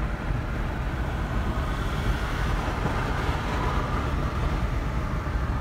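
Steady low road rumble inside the cabin of a moving car.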